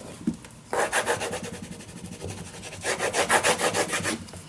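Quick back-and-forth rubbing strokes burnishing glued bookbinder's linen down onto a paper album spine, pressing it so it is attached everywhere. Two runs of strokes with a pause of about a second between them.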